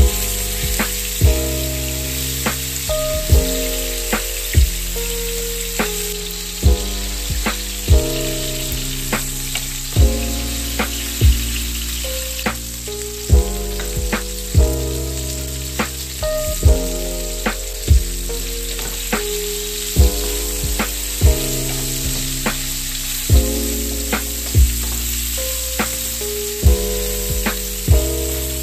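Chicken pieces frying in hot oil in a non-stick pan, a steady sizzle, stirred now and then with a wooden spatula. Background music with a regular beat and sustained low notes plays underneath.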